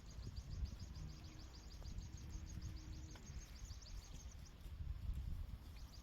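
A rapid, high-pitched chirping trill, about ten chirps a second, that fades out about halfway through. Under it runs a low rumble throughout.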